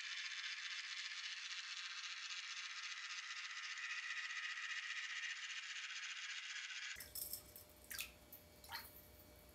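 A steady rattling hiss for about seven seconds, which cuts off suddenly. Then come water drips and small plops as a crankbait lure is swum in a filled bathtub.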